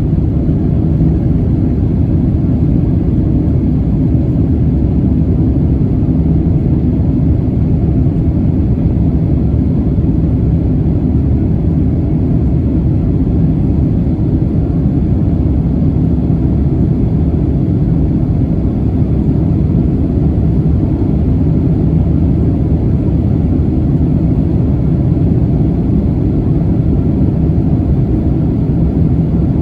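Jet airliner cabin noise: a loud, steady, low rumble of engines and airflow.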